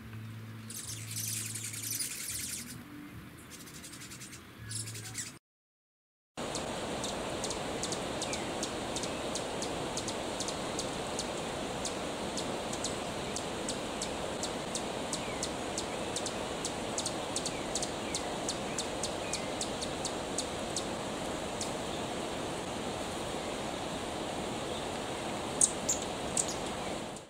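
Outdoor bird ambience: many short, high chirps repeating over a steady rushing background, with a break of about a second of silence some five seconds in.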